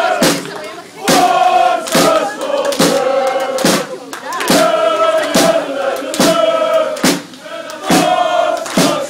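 Football supporters chanting loudly in unison, with sharp rhythmic hits just over once a second keeping the beat.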